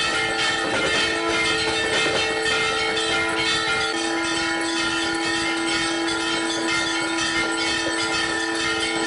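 Brass temple bells clanging rapidly and without pause during a Hindu aarti, a dense metallic ringing with many overlapping tones. A long steady tone is held from about four seconds in almost to the end.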